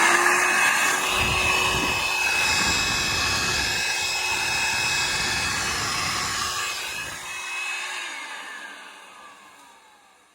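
Hoover WindTunnel Supreme upright vacuum's direct-air motor running at full speed, a steady high whine over rushing air. About eight seconds in it is switched off, and the whine falls in pitch as the fan spins down and fades away.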